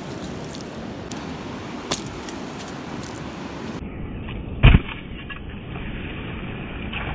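Steady rushing wind and surf noise on a tidal flat, with a few soft thuds and one heavy thump about four and a half seconds in. The thuds are feet stamping on wet sand, which makes buried geoduck clams squirt jets of water up out of their holes.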